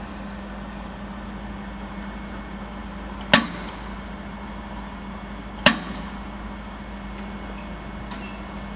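Stand-type jewelry laser welding machine firing two single pulses on gold or silver, about two seconds apart, each a sharp snap. A steady low hum runs underneath.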